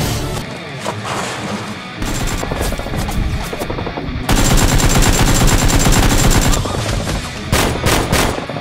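Rapid automatic gunfire, a staccato stream of shots. It grows loudest in a long sustained burst from about four seconds in to past six seconds.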